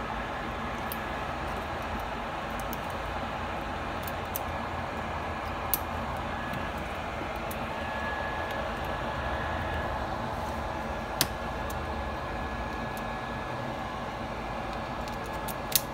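Steady fan-like air hiss with a faint steady whine, and a scatter of small sharp clicks, three louder than the rest, from tweezers, shields and flex connectors being handled and pressed onto an opened iPhone 6s.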